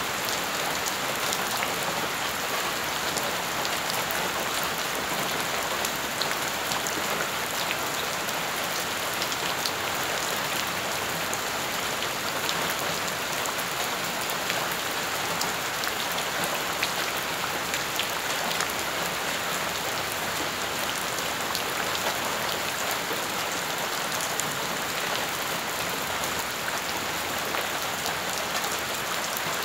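Rain falling steadily onto puddled ground: an even hiss of rain, flecked with the small ticks and splashes of individual drops hitting the water.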